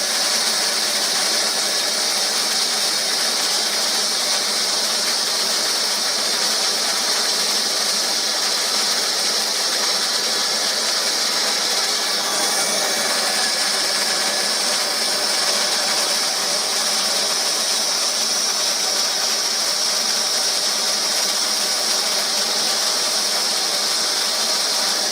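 Hot-air plastic welding gun running steadily, its blower pushing a steady hiss of hot air out of the nozzle while a seam is welded.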